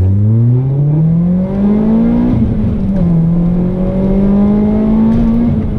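Renault Clio 197's naturally aspirated 2.0-litre four-cylinder engine with a decat straight-pipe exhaust, heard from inside the cabin while accelerating hard. The revs climb, drop at an upshift about two and a half seconds in, then climb again to another shift near the end.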